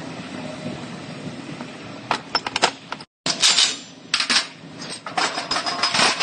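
Metal parts clinking and clanking as frame-bench fixtures are handled and set down on the steel deck, in several clusters of sharp knocks through the second half.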